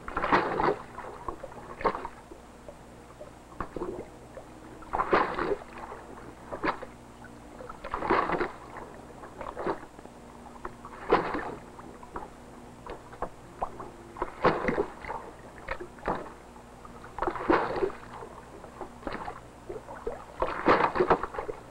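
Water splashing and slapping against wooden skiffs in choppy water, in bursts every few seconds, over a faint steady hum.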